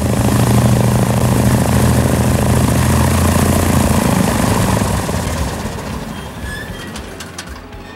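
A 1977 Cessna 182Q's six-cylinder Continental O-470 engine and propeller running at taxi power as the plane rolls close by. It is loud for about five seconds, then fades away.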